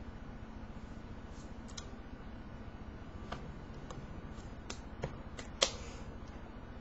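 Steady low hum with a handful of short, sharp taps and slaps from hands striking each other and the body while signing in sign language, the loudest about five and a half seconds in.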